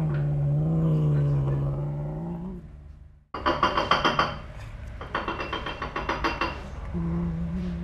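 A cat growling in one long, low, wavering moan while it eats. After a sudden break comes a run of fast, regular clicking chewing sounds, and a short low growl starts again near the end.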